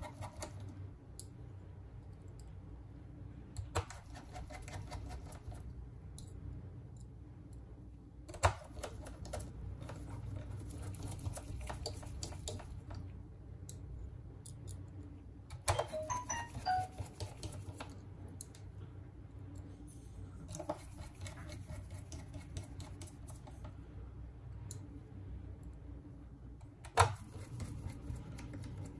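Scattered small clicks and taps of hand tools on smartphone parts during a repair, with a few sharper knocks and a brief cluster of clicks about halfway through, over a steady low hum.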